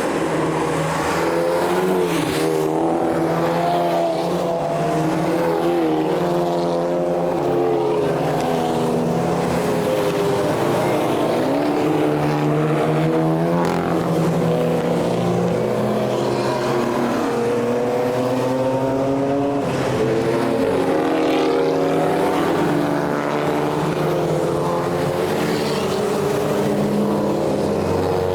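Race car engines as several cars pass through a twisty section one after another. The engines rise in pitch under acceleration and drop back at each gear change and lift, with two or more cars often heard at once.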